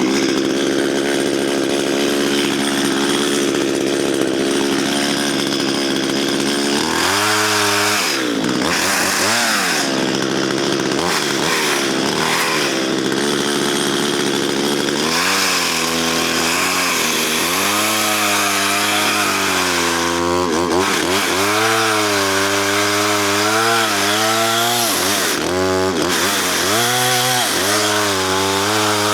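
Two-stroke chainsaw running at high revs and cutting through a spruce log, its pitch dropping and recovering again and again as it labours under load. The chain is dull and, by the owner's account, needs refiling.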